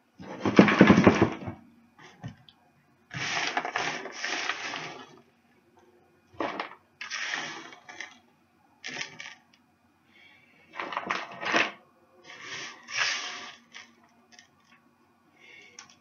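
Handfuls of crunchy baked granola clusters scooped off a metal baking tray and dropped into a storage tub, rattling in separate bursts every second or two. The first pour, about half a second in, is the loudest.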